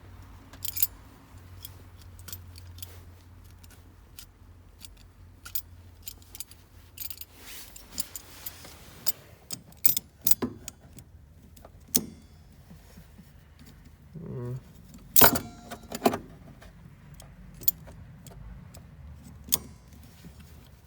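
Irregular metallic clicks and clinks of hand tools as vice grips (locking pliers) are adjusted and clamped onto a fuel line, with the loudest clacks about fifteen and sixteen seconds in.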